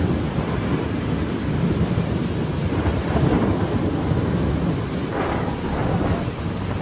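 Heavy rainstorm: steady rain and rushing floodwater over a constant low rumble.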